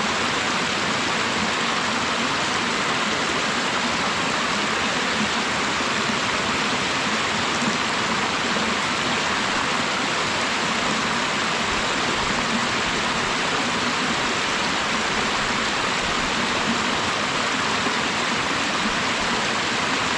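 Steady rush of running mountain water, even and unbroken, a full hiss with no separate splashes or events.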